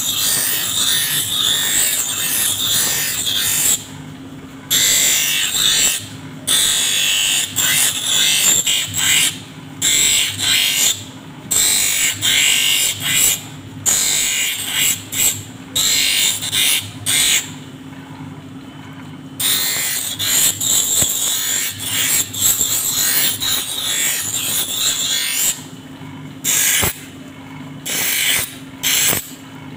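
A glass photochromic lens is being ground by hand on the spinning wheel of an optical hand edger, trimming it to size for the frame. The edger motor hums steadily throughout. A harsh, hissing grind sounds each time the lens is pressed to the wheel, broken many times by short gaps when it is lifted off.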